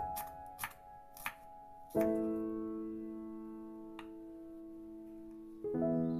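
Background piano music: sustained chords struck about two seconds in and again near the end, with a few light clicks in the first second or so.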